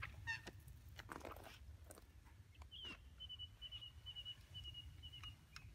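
Faint rustling and sharp clicks as a landing net holding a freshly caught tench is handled on an unhooking mat, over a low steady rumble. About halfway through, a bird gives a thin, high trill of quick repeated notes lasting a couple of seconds.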